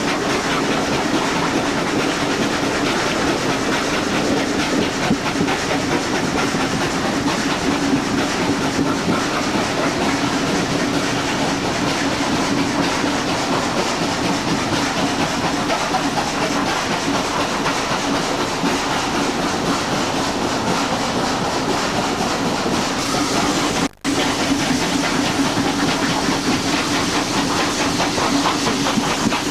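Steam-hauled heritage train heard from a carriage window on a curve: steady running noise of the carriage wheels on the rails, with the steam locomotives working hard up the grade. The sound cuts out for a moment near the end.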